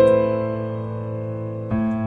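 Background music: soft piano or electric-piano chords, one struck at the start and left to fade, and another struck shortly before the end.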